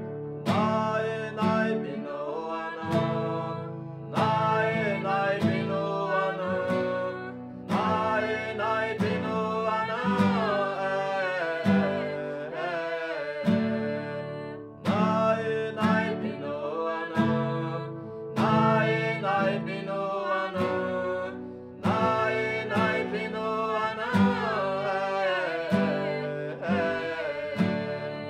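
Two classical nylon-string acoustic guitars strummed together in a steady rhythm, with a man singing a melody over them.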